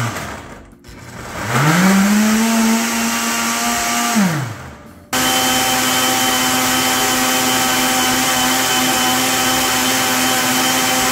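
Countertop blender blending a green smoothie of leafy greens and fruit. The motor spins up about a second and a half in, runs for a few seconds and winds down, then starts again abruptly about five seconds in and runs at a steady pitch.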